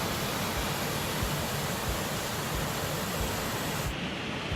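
Steady rushing hiss of a small mountain waterfall on a fell beck; the highest part of the sound drops away nearly four seconds in.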